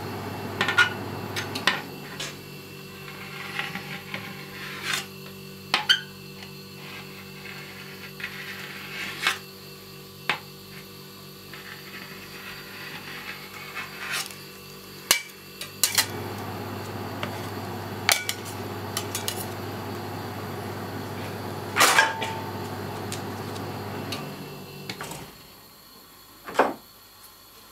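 Metal spatula tapping and scoring a frozen sheet of ice cream on a rolled-ice-cream cold plate: scattered sharp clicks and knocks, the loudest, about two-thirds of the way through, with a brief metallic ring. Underneath, a low steady hum from the plate's refrigeration unit stops early on, comes back about halfway through and stops again near the end.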